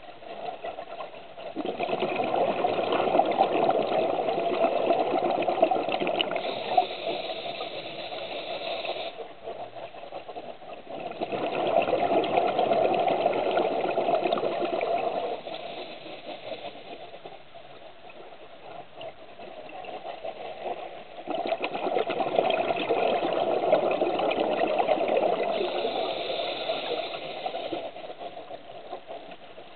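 Scuba diver breathing through a regulator underwater: three long rushes of exhaled bubbles, several seconds each and roughly ten seconds apart, with quieter stretches between.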